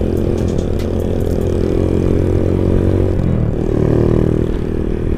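Motorcycle engine running while riding, heard from the bike itself, with a steady note. About three seconds in the engine note shifts, as with a change in revs or gear.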